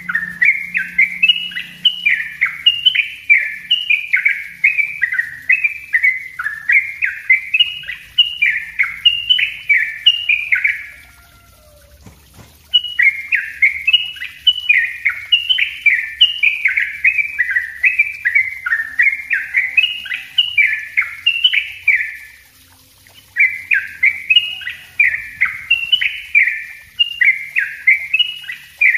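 Yellow-vented bulbul (cucak trucuk) singing a dense, rapid 'ropel rapat' song of short falling notes, a few a second, breaking off twice for about a second. This is the style of song that keepers play as a tutor (masteran) and to provoke other bulbuls (pancingan).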